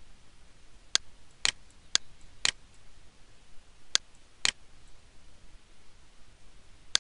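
Computer mouse button clicking: about six sharp clicks, mostly in pairs half a second apart, with a pause in the middle.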